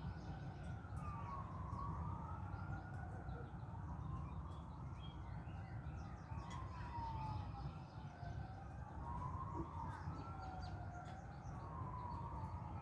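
Faint fire engine siren wailing in a slow rise and fall, each sweep taking about five seconds. Two wailing tones overlap, one rising as the other falls.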